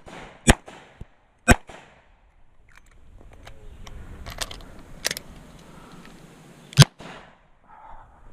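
Revolver gunfire from a Smith & Wesson Model 66 during a timed stage: two sharp shots a second apart, a pause broken by small ticks and two fainter shots, then one more loud shot near the end.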